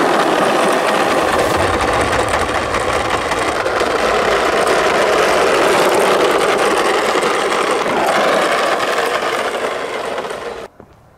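Hard plastic wheels of a toy bottle car loaded with die-cast cars rolling over brick paving: a loud, continuous rattling rumble that cuts off suddenly near the end.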